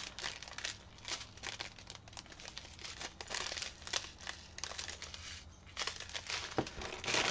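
Small plastic bags of diamond-painting drills crinkling and rustling irregularly as they are picked up and sorted by hand.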